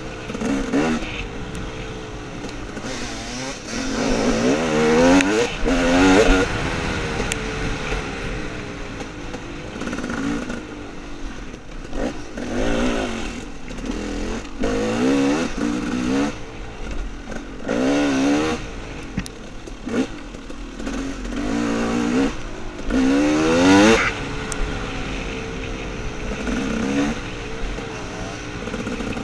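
Dirt bike engine revving up and easing off again and again as it is ridden, its pitch rising with each pull of the throttle; the loudest surges come about five to six seconds in and again near twenty-four seconds.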